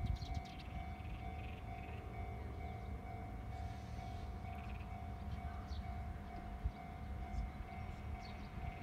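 Outdoor ambience beside a field: a steady low rumble with a constant mid-pitched tone running underneath, and scattered short high chirps.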